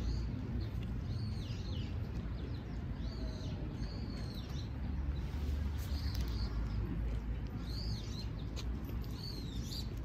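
Eurasian tree sparrow giving short single chirps, about six spaced a second or two apart, over a steady low background rumble.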